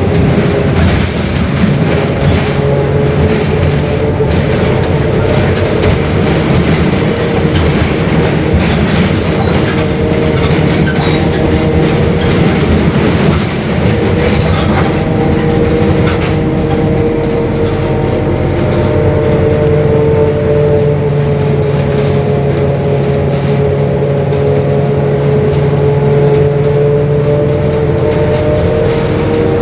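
Mercedes-Benz OF-1721 Bluetec 5 diesel bus under way, its engine running steadily over a droning gear whine from the differential. The whine dips a little in pitch partway through and climbs again near the end as the bus changes speed, with light body rattles throughout.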